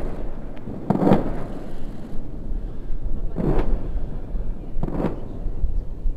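Three distant explosions from airstrikes, each a single sudden blast, about a second in, about three and a half seconds in and about five seconds in.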